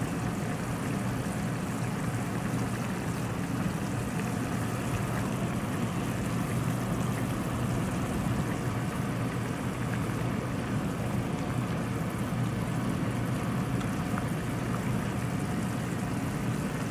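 A pot of chicken soup boiling: a steady bubbling, rushing noise.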